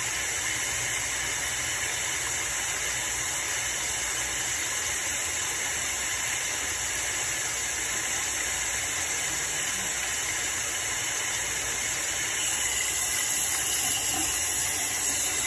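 Bathroom sink faucet running, water pouring over hands and splashing into the basin as a steady hiss that gets louder near the end.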